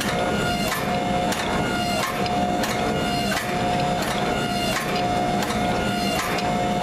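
Hydraulic forging press at work drawing out a white-hot 52100 steel bar: a steady motor-and-pump whine with a sharp clack about every half second to second as the dies squeeze down.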